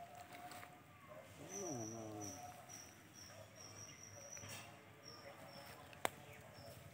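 Faint rural outdoor sounds: a bird repeating short high chirps, a short call that falls in pitch about a second and a half in, and a single sharp click about six seconds in.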